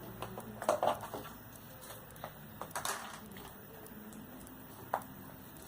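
Homemade slime handled by hand: a few short, sticky squelching clicks spaced a second or two apart.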